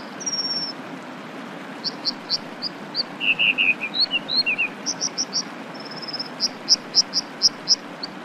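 American dipper singing: a varied run of short, high notes, each repeated in quick groups of two to five. Behind it is the steady rush of a mountain river.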